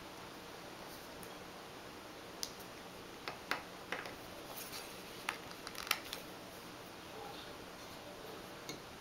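Small plastic clicks and taps as a metal-and-plastic model starship and its clear connector piece are fitted onto a black plastic display stand. A handful of short, sharp clicks come in the middle, over a faint steady room background.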